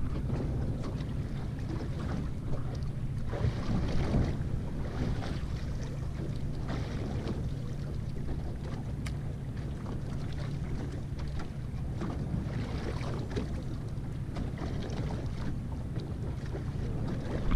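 Wind on the microphone and choppy water slapping against a drifting fishing boat's hull, over a low steady motor drone that eases about two-thirds of the way through.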